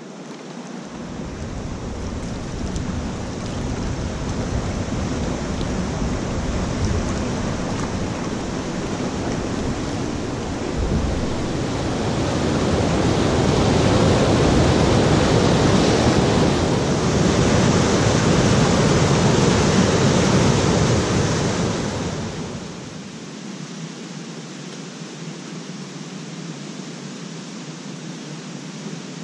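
Rushing water of river rapids. It builds up and is loudest through the middle, then drops suddenly about three-quarters of the way in to a softer, steady rush.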